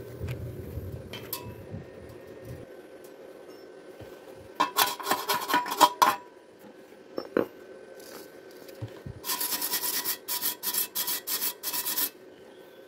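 Steel wire brush scrubbing slag off a fresh stick-weld bead on a thin galvanized steel square tube, with quick scraping strokes that make the tube ring. There is a short burst about four and a half seconds in, a couple of clicks, then a longer run of about five strokes a second that stops near the end.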